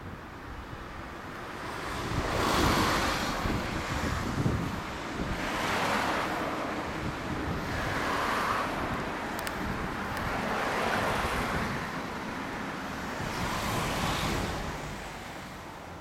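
Road traffic passing on the street, a rushing tyre-and-wind noise that swells and fades several times, each pass lasting two or three seconds.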